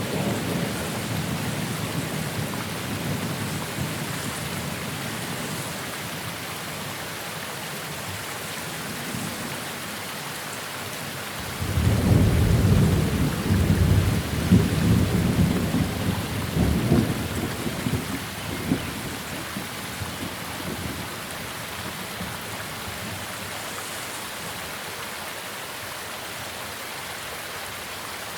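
Steady rain hissing, with the tail of a thunder rumble fading in the first seconds. About eleven seconds in, a loud thunderclap breaks and rolls for several seconds before dying away, leaving the rain alone.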